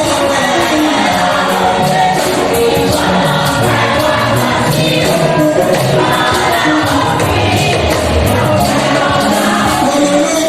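Church choir singing gospel music over instrumental accompaniment with a regular percussion beat.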